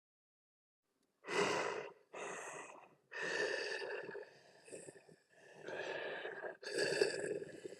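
Tusken Raider sound effect: harsh, breathy vocal grunts and snarls in a run of about six short bursts, starting about a second in.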